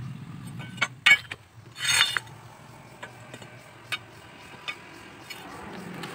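Rusty flat steel bars clinking and scraping as they are handled, with a few sharp clinks and a louder scrape about two seconds in.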